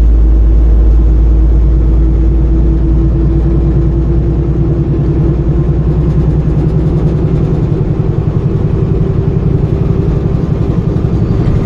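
Engine and road rumble inside a moving vehicle's cabin: a steady low drone with an even engine pulse. The deepest rumble eases a little about halfway through.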